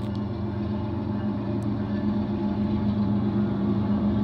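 BNSF freight train's diesel-electric locomotives running as they approach, a steady low engine drone that grows gradually louder.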